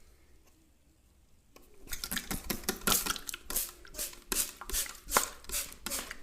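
Quick rhythmic hand strikes of a percussive head massage: chopping or slapping blows on the head, about three a second, beginning about two seconds in after a faint start.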